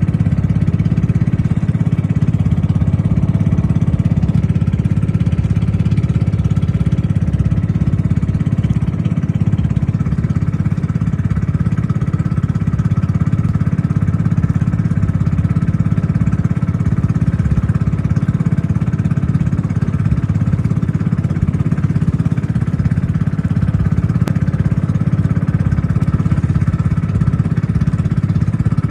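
An engine running steadily at an even speed, a constant low drone that does not change.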